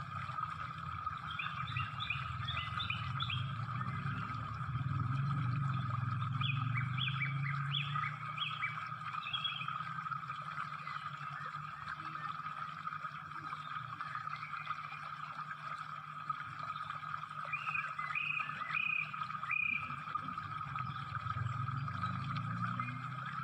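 Short chirping animal calls in three clusters: near the start, around the middle and a few seconds before the end. They sit over a steady high drone and a low hum.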